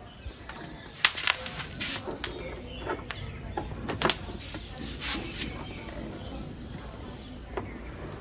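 Plastic clicks and knocks of a Yamaha R15M's clear stock visor being pressed and worked into the front fairing by hand: a quick cluster of sharp taps about a second in, then scattered single knocks.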